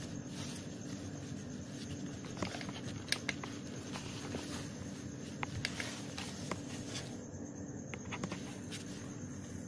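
Steady background noise with a low hum, broken by a scattering of light clicks and taps, the two closest together about three seconds in.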